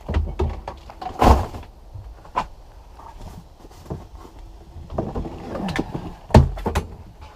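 Gear being pulled out of a boat's storage compartment: several hard clunks and knocks with some scraping and rattling between them, the loudest about a second in and again near the end.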